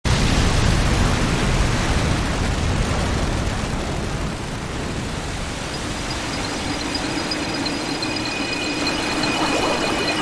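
Sound effect of a huge flood wave of water rushing and surging, a continuous loud wash of noise that is heaviest at the start. In the last few seconds a steady low hum and several thin high ringing tones come in over it.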